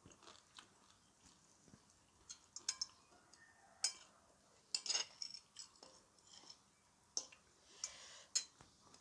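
Close-miked chewing, with several sharp crunches of crisp food between bites.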